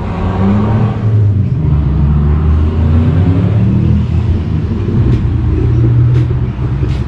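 Holden VL Turbo Commodore's turbocharged straight-six engine running, a steady low drone whose revs rise and fall slightly.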